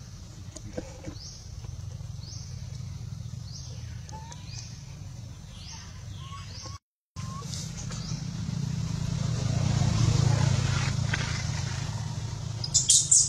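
Outdoor ambience: a run of short, high, rising chirps over a steady low rumble, a brief dropout, then a rumble that swells and fades the way a passing vehicle does, with a few sharp high chirps near the end.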